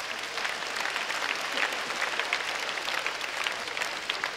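Theatre audience applauding and laughing after a punchline, a dense patter of many hands clapping.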